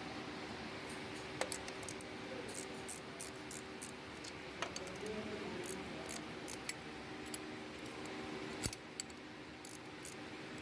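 Irregular small metallic clicks and clinks, like hand tools and parts being handled during AC compressor work, over a steady low hum.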